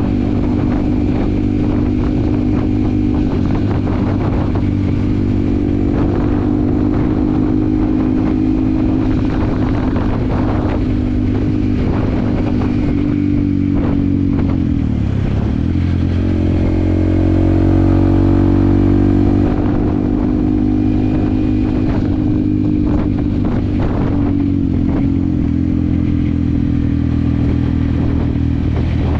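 Yamaha WR155R's single-cylinder four-stroke engine running at steady revs while ridden. About halfway its revs drop briefly, then climb and get louder for a couple of seconds before settling back to a steady pull.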